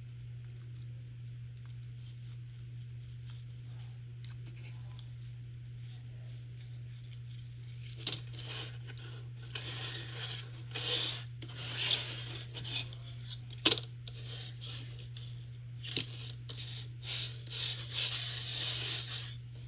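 A steady low hum, then from about eight seconds in, irregular bursts of cardboard scraping and rustling as a cardboard puppet is moved, with a sharp knock partway through.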